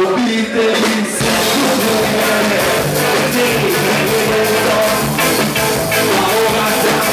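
Live punk rock band playing loud: a male singer's voice over drums and guitars, with the full beat coming in about a second in.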